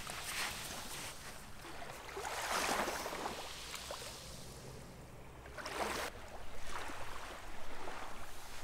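Small waves washing up onto a sandy shore and drawing back, the wash swelling and fading every couple of seconds.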